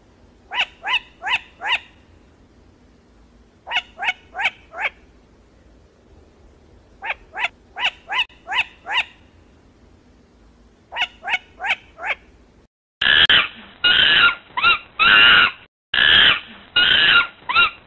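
Hooded cranes calling: clusters of four or five short, sharp call notes, about four a second, repeated every three seconds or so. About thirteen seconds in, after a brief gap, a louder run of longer, overlapping calls takes over.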